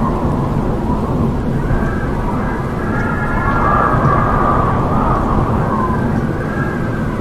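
Strong wind howling: a steady low rush with whistling tones that rise and fall, swelling about three to four seconds in.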